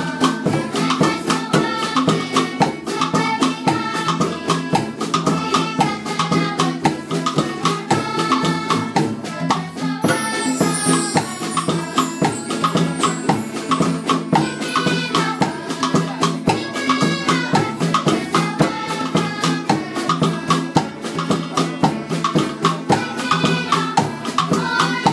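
Music with a steady, quick beat of shaken percussion and drum under a melody line.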